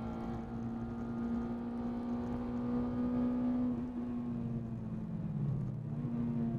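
Honda DC5 Integra Type R's 2.0-litre K20 four-cylinder, fitted with an aftermarket Gruppe M air filter, heard from inside the cabin pulling hard at a high, nearly steady pitch for about four seconds. The revs then fall as the car approaches a corner, with a brief rise again near the end.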